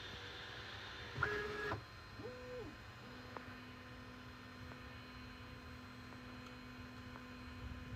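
Bambu Lab A1 Mini 3D printer's stepper motors whining through short moves as the print starts. A higher whine starts and stops abruptly just after a second in, a short whine rises and falls in pitch around two and a half seconds, then a steady low hum holds from about three seconds on.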